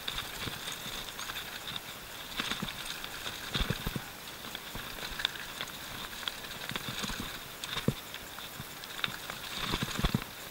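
Canyon Nerve full-suspension mountain bike riding fast down a dirt trail: a steady rush of tyres on the ground, broken by irregular knocks and rattles as the bike goes over roots and rocks, the strongest near the end.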